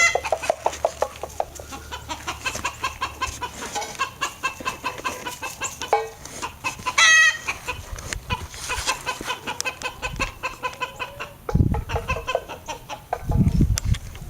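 A flock of chickens clucking steadily with many short rapid calls, one louder rising squawk about seven seconds in. Low rumbling thumps come in twice near the end.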